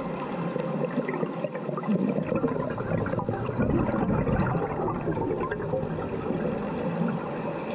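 Underwater sound picked up through a GoPro housing: a scuba diver's exhaled bubbles gurgling and rushing, swelling about two seconds in and again around four seconds.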